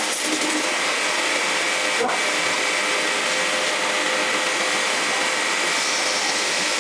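Steady hiss with a faint, even hum from workshop equipment, broken by a single sharp click about two seconds in.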